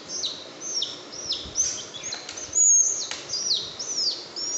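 Baby chicks peeping: a steady run of high chirps, each sweeping downward in pitch, about three a second, with one louder, higher peep a little past halfway.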